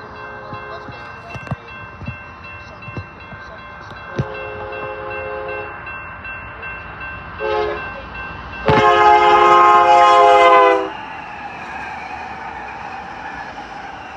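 Union Pacific freight locomotive's air horn sounding for a grade crossing: a blast at the start, a long one about four seconds in, a short one, then the longest and loudest blast about nine seconds in. A crossing warning bell rings steadily underneath. The rumble of the locomotives passing at speed rises near the end.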